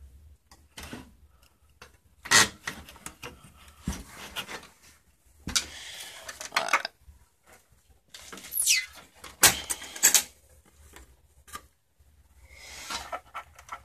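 Handling noises of someone working one-handed: scattered sharp knocks and clicks with patches of scraping and rubbing, and a short falling squeak about halfway through.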